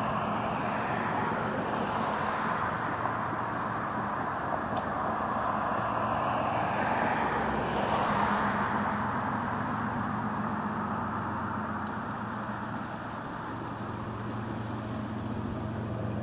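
Road traffic: cars driving past, the tyre and engine noise swelling as one goes by about eight seconds in, over a steady low hum.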